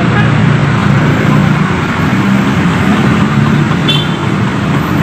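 Large coach bus's diesel engine idling steadily, heard up close beside the bus body.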